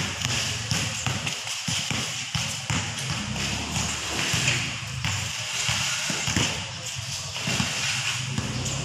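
Pickup basketball on a concrete court: the ball bouncing and players' shoes scuffing and tapping on the concrete, with players calling out.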